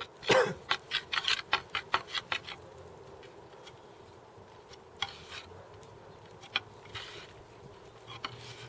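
Bondo body filler being mixed with its hardener, the mixing tool scraping and clicking against the filler and mixing surface. A quick run of scrapes comes in the first two and a half seconds, then only a few single strokes.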